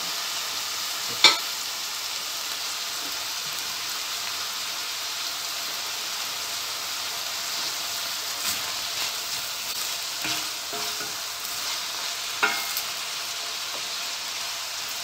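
Chopped onions and peppers sizzling in olive oil in a stainless steel pot, stirred with a wooden spoon. The spoon knocks against the pot a few times, loudest about a second in.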